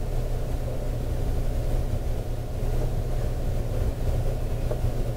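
Steady low hum and rumble inside a standing JR 681-series electric train car, its onboard equipment running while it waits at the platform before departure.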